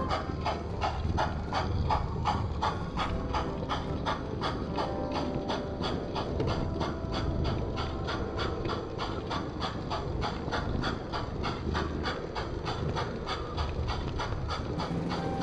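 Large-scale model steam locomotive running at a steady speed: an even beat of about four strokes a second over a low mechanical rumble from its running gear.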